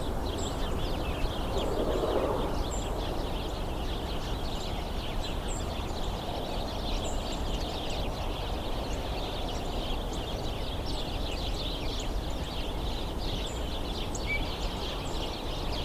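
Steady chatter of a large flock of small birds hidden in brush, many short calls overlapping continuously, with a few thin high notes above. It plays over a steady low background rumble.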